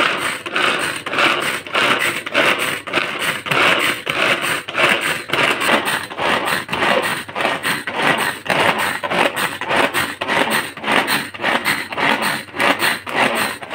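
Hand-operated vegetable chopper being worked over and over, its blades spinning through red onion and green chilli in the plastic bowl, a fast, regular run of whirring, chopping strokes that mince them fine.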